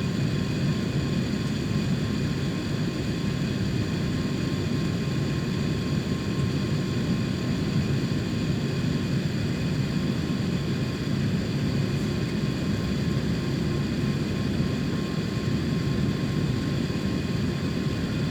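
Steady drone of an airliner's jet engines and cabin air heard from inside the passenger cabin before the takeoff roll, a constant low rumble with faint high steady whines above it.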